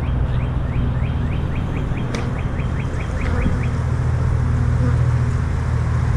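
A small bird chirping over and over in quick, short rising notes, about three a second, that stop about halfway through, over a steady low hum.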